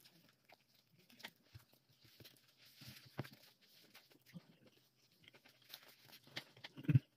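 Close-up eating noises: a bite into a soft bread-roll sandwich and chewing, with small wet mouth clicks and crackles. Paper napkin rustles near the end, and a low thump near the end is the loudest sound.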